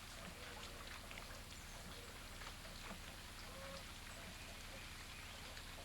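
Faint outdoor ambience after a hailstorm: scattered soft ticks, like water dripping, and a few short faint calls, over a steady low hum.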